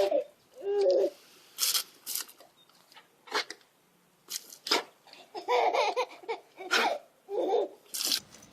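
A baby babbling and giggling in short bursts, with several brief sharp noises in between.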